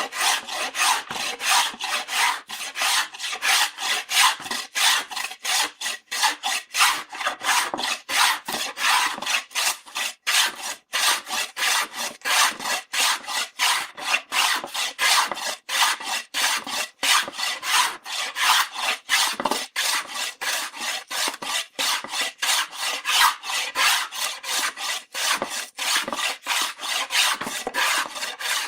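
Rapid, even rasping strokes, like something being scraped or rubbed back and forth, about three a second.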